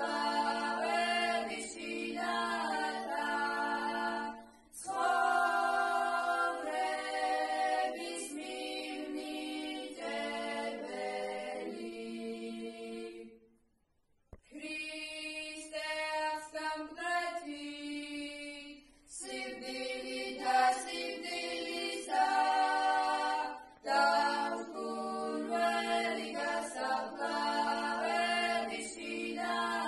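Young female voices singing a Georgian Easter hymn a cappella in several parts over a steady held low note. The singing breaks off briefly about halfway through.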